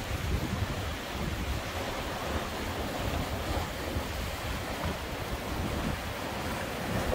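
Sea swell washing against basalt rock ledges, with wind buffeting the microphone in uneven low gusts.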